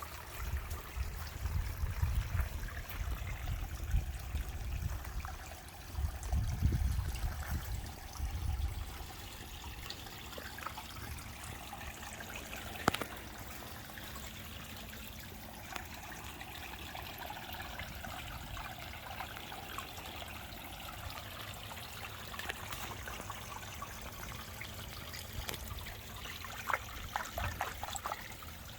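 Koi pond water trickling steadily. Low rumbling fills the first nine seconds or so, and there is a single sharp click about thirteen seconds in.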